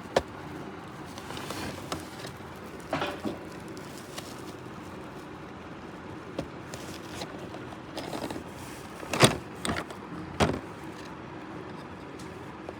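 A handful of short, sharp clicks and knocks from hands working the plastic parts of a trolley bag's combination lock, the loudest two about three quarters of the way through, over a steady faint hiss.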